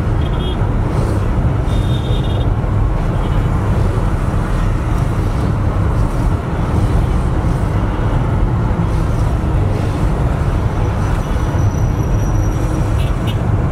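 Steady low rumble of a car's engine and road noise heard from inside the moving vehicle, with the traffic of the street around it. A few short, faint high tones come and go.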